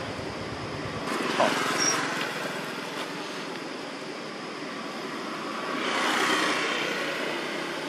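A motor scooter passing on the road, its engine and tyre noise rising to a peak about six seconds in and then fading. A smaller swell of passing-traffic noise comes about a second and a half in.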